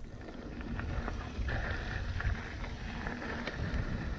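Riding noise from a moving mountain bike: a steady rumble of wind on the microphone and tyres rolling over a dirt trail, with scattered small clicks and rattles.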